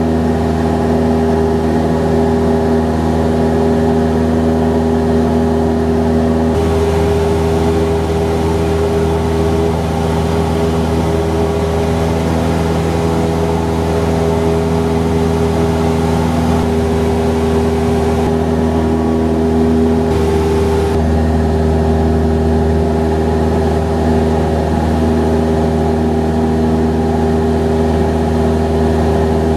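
Cessna 172 Skyhawk's piston engine and propeller heard from inside the cabin, running steadily in cruise flight with a constant drone.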